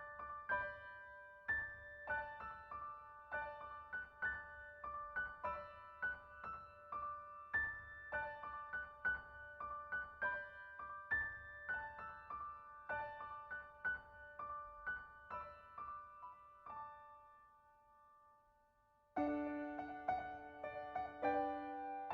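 Background piano music: a light melody of single struck notes that fades out about 17 seconds in, then after a short gap a new, lower passage starts about 19 seconds in.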